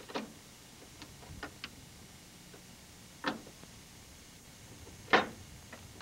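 Steel muskrat traps and their chains clinking and knocking against the boat's floor as they are handled: a handful of separate knocks, the loudest about five seconds in.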